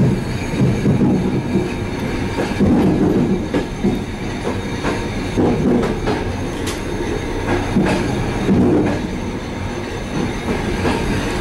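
Running noise heard from the vestibule of a moving suburban passenger train coach: a steady low rumble with irregular clicks and knocks as the wheels pass over rail joints and switches.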